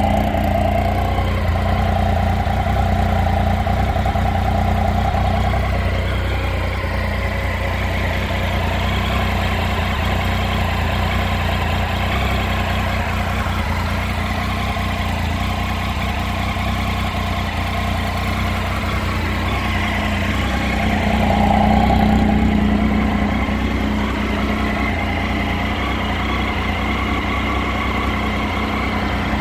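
2012 Triumph Tiger 800's 799 cc inline-triple engine idling steadily, briefly a little louder about twenty seconds in.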